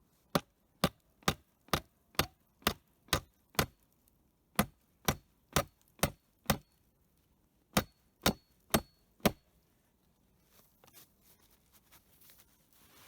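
Hammer driving nails into wooden boards: three runs of sharp strikes, eight, then five, then four, about two a second, some with a faint metallic ring.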